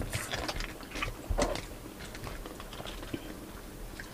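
Close-up eating sounds: chewing and wet mouth clicks and smacks, busiest in the first second and a half with one louder mouth sound, then sparser.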